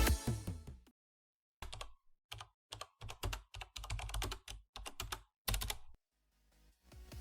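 A series of short, irregular clicks and knocks from hand tools working on the engine while a turbocharger is fitted, with dead silence between them. Background music fades out at the start and fades back in near the end.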